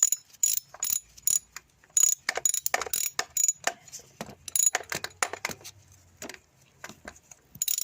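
Socket ratchet handle clicking in short, irregular runs as it winds in a starter-motor mounting bolt.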